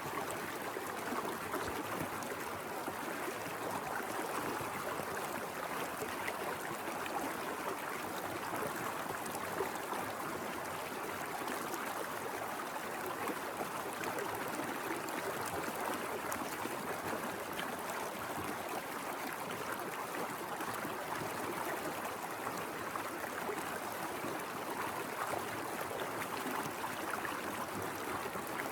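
Small mountain river flowing, a steady, even rush of water without breaks.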